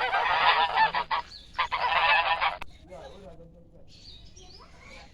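Domestic geese honking: two loud bursts of many overlapping honks, each about a second long, then fainter scattered calls near the end.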